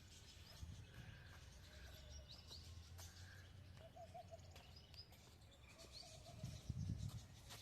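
Faint outdoor ambience: scattered small birds chirping with short, high notes, over a low steady rumble.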